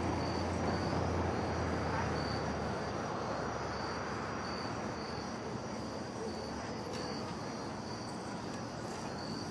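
Insects chirping in a slow, even repeating pulse over a steady background hiss. A low hum underneath stops a little under three seconds in.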